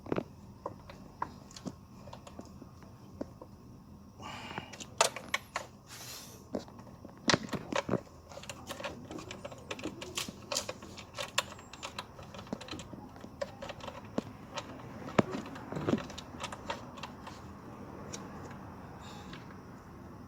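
Irregular light clicks, taps and rattles of tools and small parts being handled during work on a car engine.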